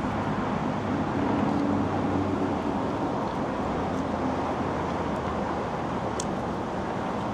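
Steady road traffic noise from cars on the adjacent street, with a couple of light clicks of a fork against the plate.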